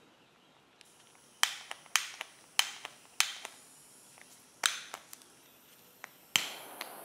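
Handheld butane pencil torch being lit: about six sharp clicks of its push-button piezo igniter, the last one about six seconds in catching the flame, which then burns with a steady hiss.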